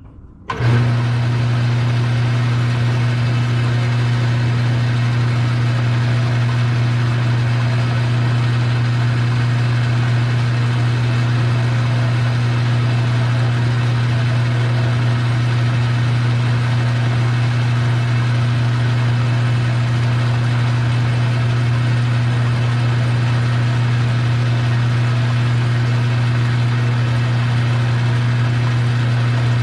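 Metal lathe's electric motor switching on about half a second in and then running steadily under power, with a strong, even electrical hum.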